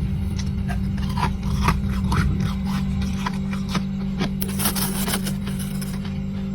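Powdery freezer frost crunching and squeaking between the teeth in a run of short crunches, with a longer hissy crunch about four and a half seconds in. A steady low hum runs underneath.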